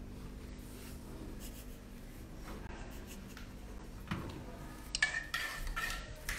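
Small metal saucepan being lifted off a gas hob's grate with a cloth: light metal clinks and scrapes, the sharpest with a brief ring about five seconds in, over a faint steady hum.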